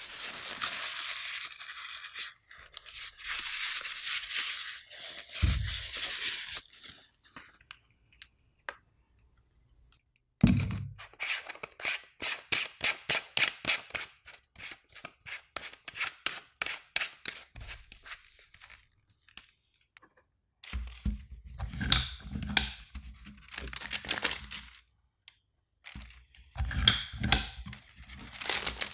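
Handling a plastic cookie press. First comes scraping as dough is packed into the barrel, with a thump. Then a long run of quick, even plastic clicks as the star-patterned disc end is fitted and tightened. Near the end come clusters of thumps and clicks as the ratcheting plunger is pressed down on the baking tray.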